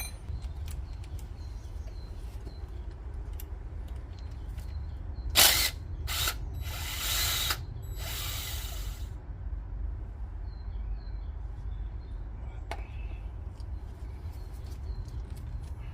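A ratchet working loose the Allen-key bolt at the bottom of a motorcycle fork leg. There are scattered clicks, a sharp crack a little over five seconds in, then two bursts of rapid ratcheting around seven and eight seconds, over a steady low rumble.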